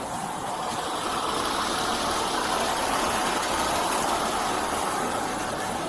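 Motor vehicle engine and road noise, swelling from about a second in and easing off near the end.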